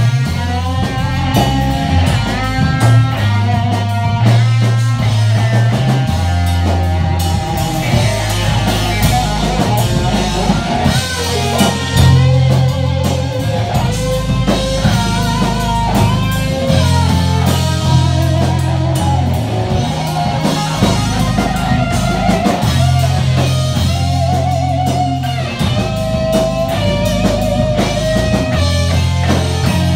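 Live rock band: an electric guitar plays a lead line with wavering, bending notes over drums and a sustained low end.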